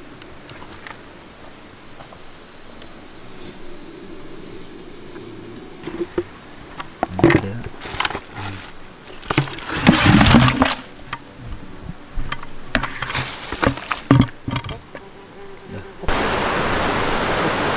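Plastic buckets and bags being handled on river pebbles: a run of knocks, clatters and rustles, loudest about ten seconds in, over a steady high insect buzz. Near the end it cuts to the steady rush of a river.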